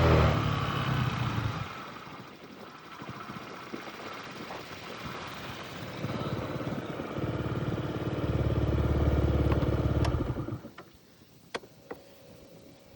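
Yamaha Jog 50cc scooter engine: its revs fall away, it runs low for a few seconds, then revs up again for about four seconds before going quiet suddenly about 11 s in. A couple of sharp clicks follow.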